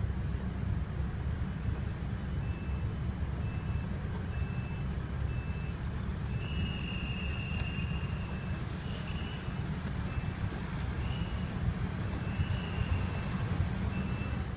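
Steady low rumble of street traffic with a string of short electronic beeps at one high pitch, starting about two seconds in, a few of them held longer, like a vehicle's warning beeper.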